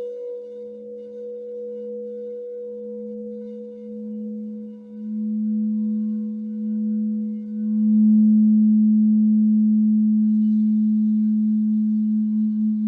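Crystal singing bowls ringing in long pure tones: a higher bowl's tone carries on while a lower bowl comes in at the start and swells in waves, loudest about two-thirds through. Near the end the low tone begins to pulse in a steady beat.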